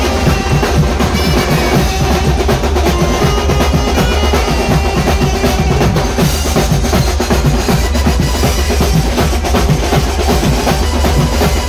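Loud live banjo-party band music: a saxophone melody over fast, busy drumming on sets of chrome-shelled snare-type drums, bass drum and cymbals.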